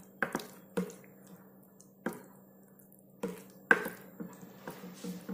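White plastic spoon tapping and scraping against a glass bowl while stirring thick hung curd with powdered sugar: about ten irregular taps, with quieter gaps between them.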